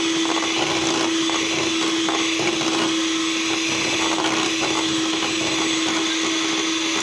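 Electric hand mixer running steadily, its beaters whisking cake batter in a stainless steel bowl, as an egg is beaten into the creamed butter and sugar. The motor gives one steady, even-pitched whine.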